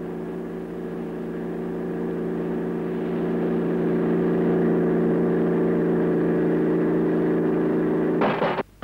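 Vehicle engine running at a steady, unchanging pitch and growing gradually louder. It is cut off near the end by a short burst of noise.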